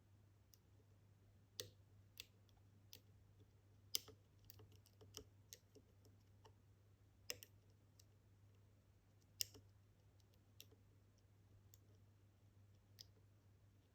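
Faint, irregular clicks of a pick and tension wrench working the pins of a 16-pin Kaba experT dimple lock, as pins are lifted and set one by one. There are about a dozen scattered clicks, the sharpest about four and nine and a half seconds in.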